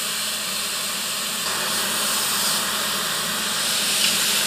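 Ice water from a soaked towel hissing into steam on the freshly welded, still-hot steel tube of a Super Duty Dana 60 front axle. The hiss starts suddenly and holds steady. It is the quench that shrinks the weld beads to pull the bent axle tube straight.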